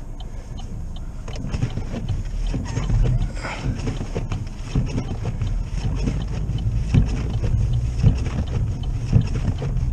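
Snow and ice being cleared from a car's windshield: irregular scraping and knocks over a steady low rumble.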